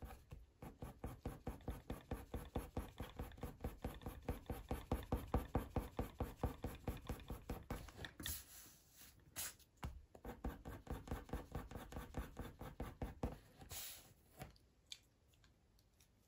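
Coloured pencil scratching over hot-press watercolour paper in quick, even shading strokes, several a second, with a couple of short pauses.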